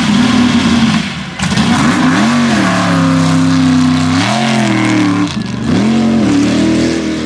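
Mega truck's race engine revving hard under load in mud, its pitch holding high and then dropping and climbing back about three times as the throttle is eased and reapplied.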